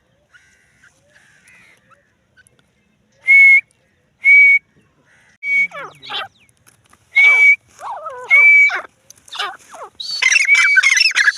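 Francolin (teetar) calling: a run of loud, short whistled notes about a second apart, mixed with quicker sweeping notes that build into a dense burst of calls near the end.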